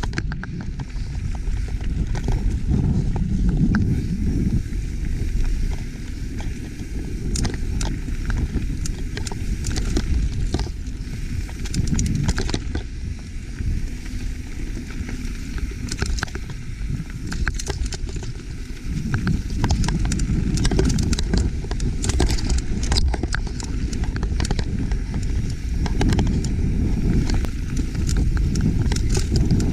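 Mountain bike riding fast over rocky dirt singletrack: wind rumbles steadily on the camera's microphone, and the tyres on gravel and the bike's chain and parts rattle in frequent sharp clicks.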